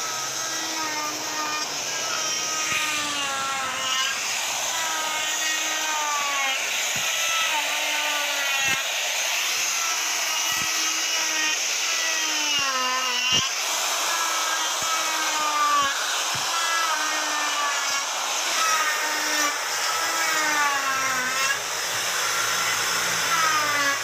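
Handheld electric router cutting wood: the motor's whine keeps sagging in pitch and recovering as the bit bites into the wood, with a few sharp knocks along the way.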